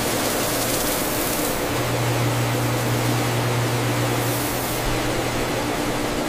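Dry granules pouring in a steady stream into stainless-steel hoppers, an even hiss, with a low machine hum coming in about two seconds in.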